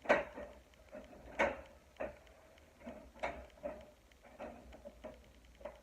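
Window blinds being closed: a string of sharp clacks and rattles, about eight over a few seconds, the loudest right at the start.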